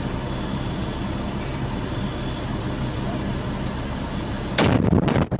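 Steady low hum of an idling engine, then about four and a half seconds in, a sudden loud explosion blast lasting under a second.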